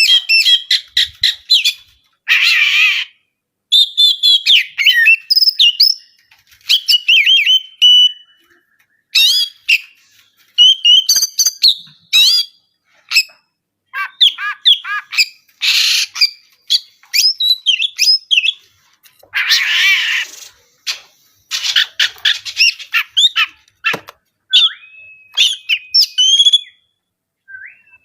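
Oriental magpie-robin (kacer) singing a fast, varied song of short whistled phrases and chatter, broken by several harsh rasping bursts, with a couple of long held whistles near the end.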